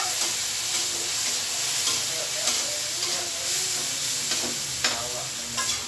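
Chopped food sizzling as it fries in an aluminium pan, stirred with a utensil that scrapes and taps against the pan a few times.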